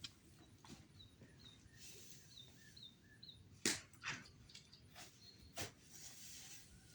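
A bird calls a quick run of short repeated chirps. Then come several sharp swishing noises, the loudest about halfway through.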